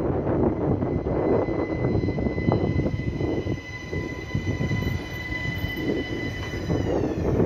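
ÖBB Cityjet electric S-Bahn train rolling into the station with a rumble of wheels on the track. A steady high whine rides over it and falls in pitch near the end as the train slows.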